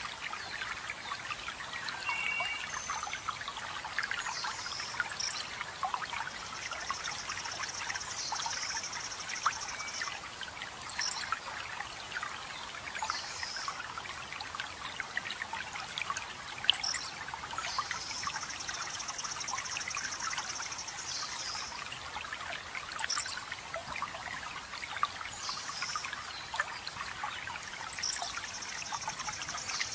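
Water trickling and splashing steadily, with songbirds singing over it: a high buzzy trill lasting a few seconds comes about every ten seconds, with short high downward-swept notes between.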